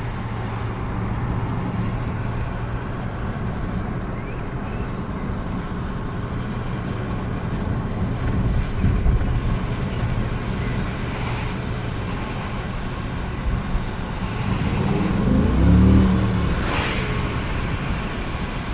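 Audi 5.2-litre V10 engine running steadily while driving, with a short rise in revs about fifteen seconds in.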